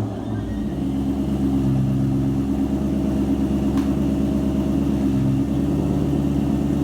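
The Cobra's engine idling steadily, just after starting, with a deep, even rumble that swells slightly a couple of times.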